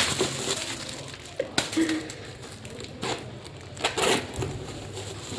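Plastic packaging crinkling and rustling while a bag is unwrapped and handled, with several sharp crackles.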